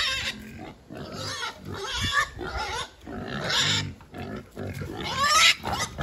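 Pigs squealing: about four loud, high-pitched squeals in a row, the loudest near the end rising in pitch.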